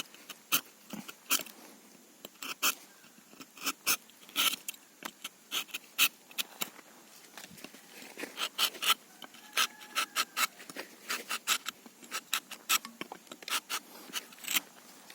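Rubber-tapping knife shaving strips of bark from a rubber tree in a quick series of short, sharp scrapes, two or three a second.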